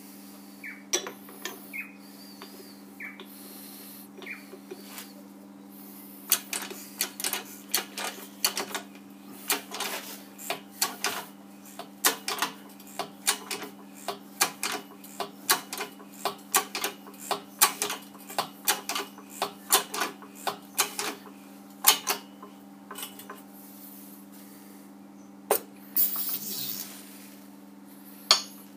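H-frame hydraulic shop press being pumped by hand to press a steel hub into its flange: a long run of sharp metallic clicks, about two or three a second, with a few louder knocks near the end, over a steady low hum.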